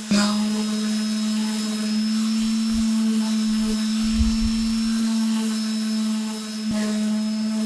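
Electric power tool motor running steadily at high speed: a constant whine with a high whistle above it, with a brief click and dip in level near the end.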